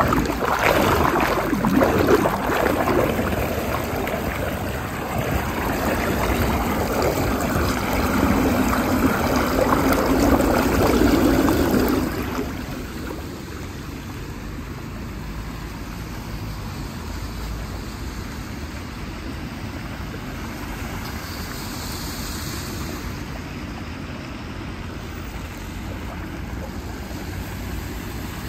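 Flood water splashing and gushing down a storm drain as a hand clears the grate. About twelve seconds in it drops suddenly to a quieter, steady rush of water swirling down the drain. Near the end a car's tyres swish through the standing water.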